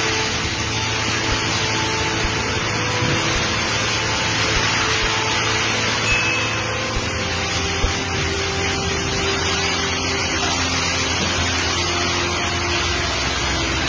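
Strong storm wind and heavy rain, a steady rushing noise that does not let up.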